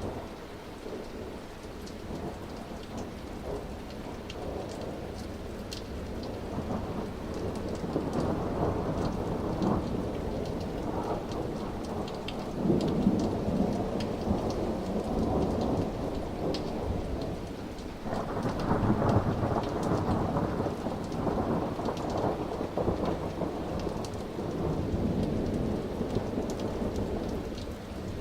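Rolling thunder from a thunderstorm overhead, rumbling on in several long waves that swell and fade, the loudest about halfway through and again about two-thirds of the way in. Steady rain falls throughout, with individual drops ticking.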